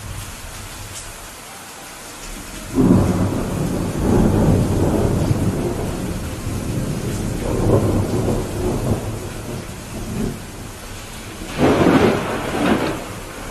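Steady rain with thunder: a loud rumble breaks in sharply about three seconds in, swelling and fading over several seconds, and a second strong peal comes near the end.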